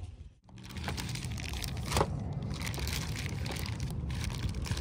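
Plastic zip-lock bag of marinated beef crinkling as it is handled and squeezed, with one sharper crackle about two seconds in, over a steady low rumble.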